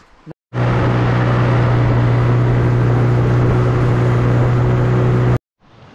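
A boat's outboard motor running steadily at speed with a constant hum, pushing a small boat upriver, with rushing wind and water over it. The sound cuts in sharply about half a second in and cuts off just before the end.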